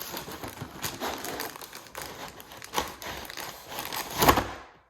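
Packaging of a boxed gingerbread house kit crinkling and rustling as it is opened, with a louder burst of crinkling about four seconds in before the sound cuts off suddenly.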